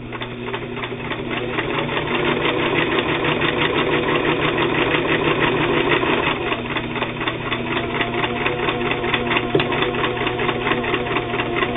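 All-steel-geared Singer 328K zigzag sewing machine stitching through split leather with an ordinary needle: a fast, even mechanical clatter that builds over the first couple of seconds and then runs steadily.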